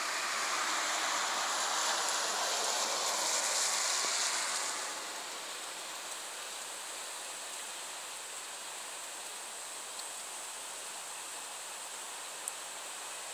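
Hurricane wind rushing through trees, a steady noisy roar like surf. A stronger gust swells over the first five seconds, then eases to a lower, even rush.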